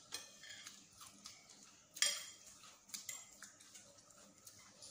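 Metal fork and spoon clinking and scraping against a ceramic plate as a salad is tossed. One clink about two seconds in is louder than the rest.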